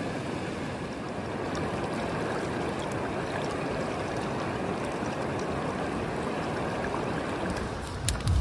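Steady rush of fast-flowing river rapids. Near the end, a few sharp crackles from a campfire.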